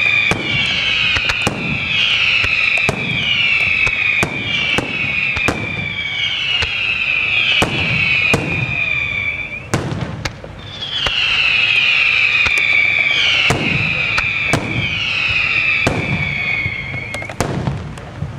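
Aerial fireworks display: many sharp bangs of shells bursting, layered with a stream of high whistles that each glide down in pitch. The whistles break off briefly about ten seconds in, then start again and stop near the end.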